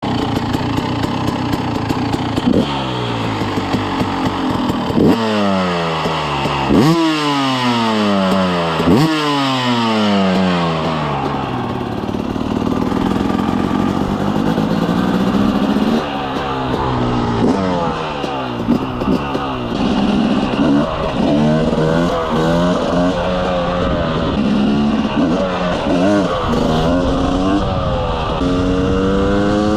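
Motorcycle engine blipped hard four times in the first ten seconds, each rev shooting up and then falling away. After that it runs with frequent rises and drops in revs, climbing steadily near the end as it accelerates.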